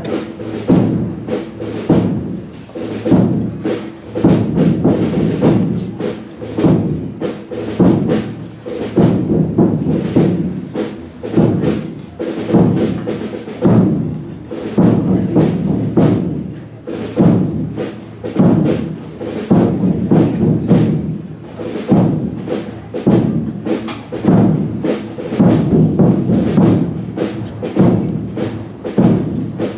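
Holy Week procession drums beating a slow march, with a heavy stroke about every second and a half.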